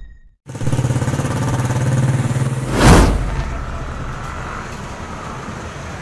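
A vehicle engine running in street traffic, with a steady pulsing hum. About three seconds in there is a loud whoosh, the loudest sound, as traffic passes close by.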